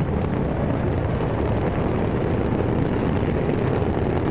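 Antares rocket's explosion and fireball on the launch pad, heard as a deep, steady rumble with no single sharp bang.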